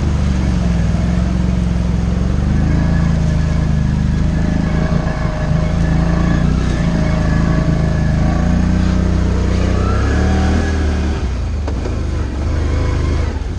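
ATV engine running steadily under load as the quad wades through a shallow rocky creek, with water splashing against the machine. Near the end it climbs onto a dirt trail and the engine note briefly eases.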